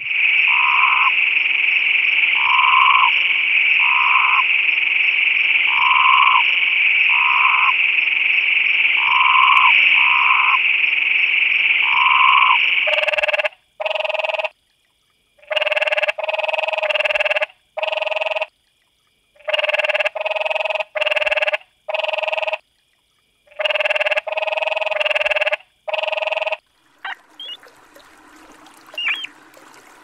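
Croaking animal calls. For the first 13 seconds there is a steady high-pitched chorus with a short call about once a second. After that comes a run of louder croaks in short bursts broken by abrupt silent gaps, and the sound goes faint for the last few seconds.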